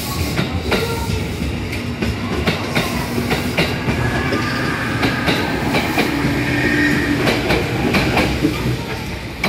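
JR Kyushu 811 series electric train pulling out and running past, its wheels clattering over the rail joints, with a motor whine rising slightly in pitch. The sound eases as the last car goes by near the end.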